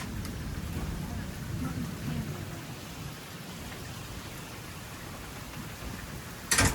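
Heavy rain falling steadily during a thunderstorm, with a low rumble of thunder in the first couple of seconds. About six and a half seconds in comes a sudden sharp crack, the loudest sound.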